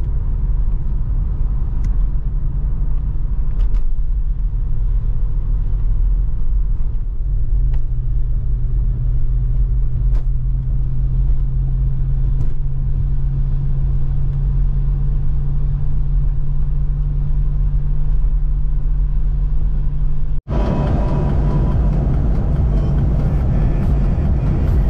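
RV being driven at highway speed: a steady engine drone over road rumble, the engine note stepping up slightly about seven seconds in. About twenty seconds in it cuts out for an instant and comes back with much more hiss.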